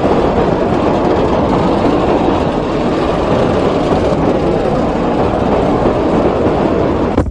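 Steady, loud running noise of a heavy vehicle on the move, starting and stopping abruptly.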